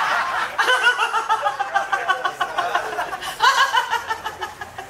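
People laughing in quick repeated ha-ha pulses. The laughter is strong at first and tails off over a few seconds.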